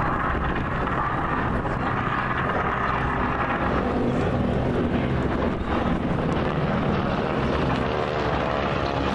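Engine noise of an airplane flying an aerobatic smoke display, a steady drone whose pitch shifts near the end.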